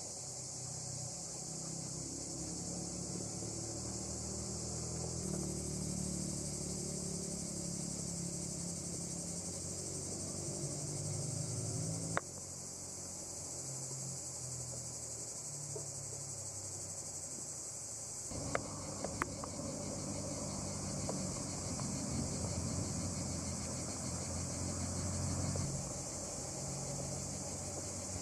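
A dense, steady high-pitched chorus of insects chirring in summer woodland, with a low rumble underneath and a few faint clicks about two-thirds of the way through.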